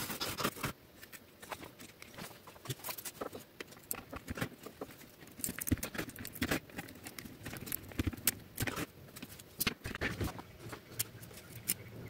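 Hands handling the small metal switch parts and plastic housing of a fan heater: scattered light clicks, taps and small scrapes at an uneven pace.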